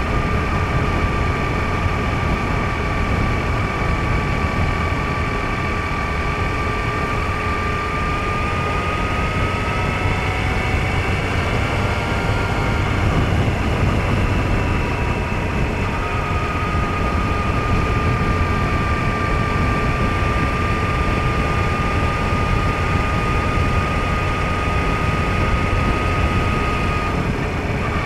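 Motorcycle at road speed: a steady engine drone with heavy wind rumble on the microphone. The engine note shifts and breaks briefly about halfway through, then settles again.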